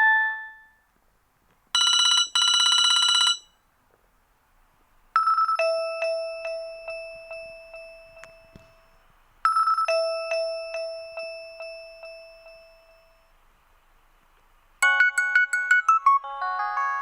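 Nokia 3310 3G ringtones played one after another. A melody trails off, then a short buzzing ring comes in two pulses about two seconds in. Next a bell-like chime sounds twice, several seconds apart, each time ringing out slowly, and a fast, bright melody starts near the end.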